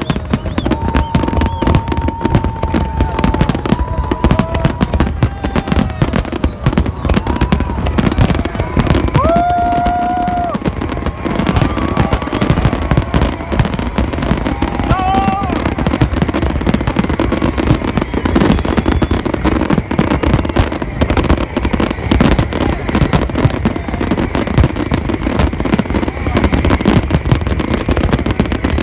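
Aerial fireworks display with many shells bursting at once: a continuous, dense stream of bangs and crackling that never pauses.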